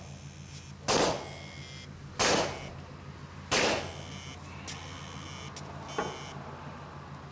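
Uncovered Western Digital hard drive running with a steady low hum, broken by sharp metallic clacks that ring briefly: three loud ones about 1.3 seconds apart in the first four seconds and a lighter one about six seconds in.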